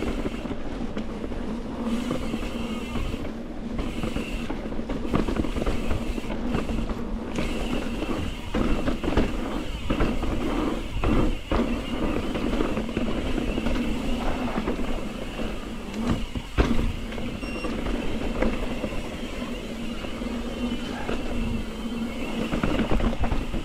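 Mountain bike descending dirt singletrack: knobby tyres rolling over dirt and roots with frequent knocks and rattles from the bike over bumps, under a steady buzz typical of an Industry Nine Hydra freehub while coasting.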